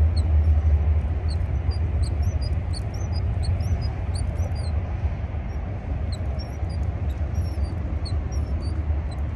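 Steady low wind rumble on the microphone, with small birds chirping over it in many short, high notes.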